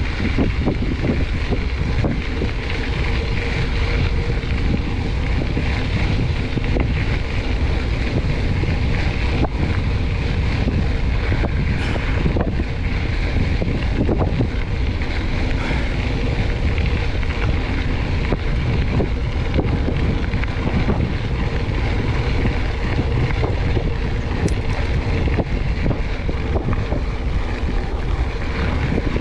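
Mountain bike being ridden: tyres rolling and scrubbing over the ground with the bike rattling over bumps, under steady wind buffeting on the microphone.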